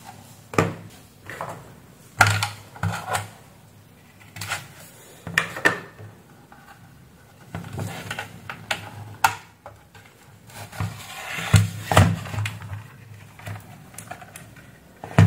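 Irregular clicks and knocks of hands handling a plastic router case, its DC power plug and multimeter test leads on a workbench, as the router is turned over and set down.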